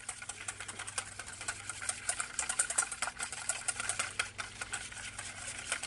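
Wire whisk beating eggs and milk in a stainless steel mixing bowl: rapid, irregular clicking and scraping of the wire tines against the metal bowl.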